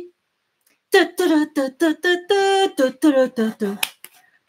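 A woman humming a tune in short sung syllables, with a few held notes, starting about a second in.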